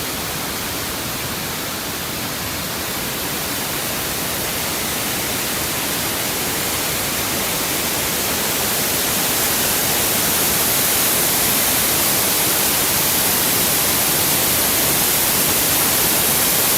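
Waterfall rushing in a steady, unbroken roar of water, growing slightly louder over the stretch.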